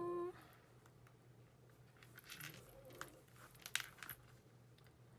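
Faint, scattered clicks and rustles of hands working cross-stitch fabric, pulling threads loose to fray the edges, after a brief steady tone at the very start.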